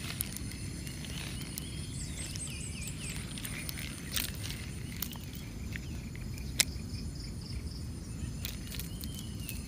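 Outdoor morning ambience: birds chirping in short runs and a steady high insect whine over a low wind rumble, broken by a few sharp clicks, the loudest about six and a half seconds in.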